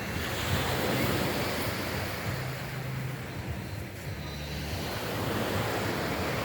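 Sea waves breaking and washing up the shore, the surf swelling about half a second in and again near the end, with wind on the microphone.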